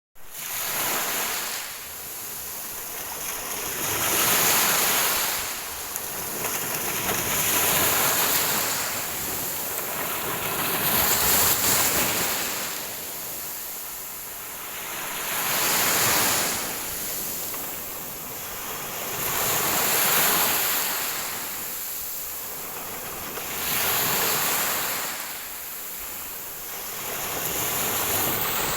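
Ocean waves breaking on a shore, a rush of surf swelling and fading about every four seconds.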